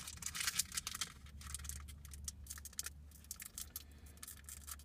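Foil booster-pack wrapper crinkling and crackling as it is handled and peeled open, with dense crackles for the first three seconds, then sparser ones. A low steady hum runs underneath.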